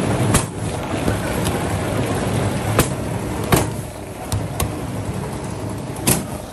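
Motor-driven dough-rolling machine running, its spinning steel roller and motor giving a steady low drone, with a few sharp knocks scattered through it.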